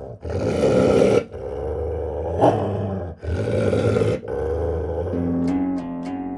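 Belgian Malinois growling deeply and continuously over a raw beef trachea in its mouth, in long rough growls broken only by short breaths, with one sharper, louder snarl midway: guarding its food from another dog. Plucked musical notes come in about five seconds in.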